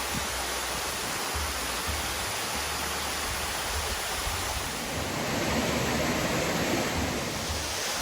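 Waterfall: a steady rush of falling water that swells slightly about five seconds in, with an on-and-off low rumble beneath it.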